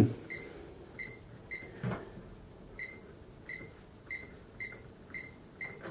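Sam4S NR-510F cash register beeping once for each key press on its flat keyboard as a product description is typed in program mode: about nine short, high beeps at an uneven typing pace, with a soft thump about two seconds in.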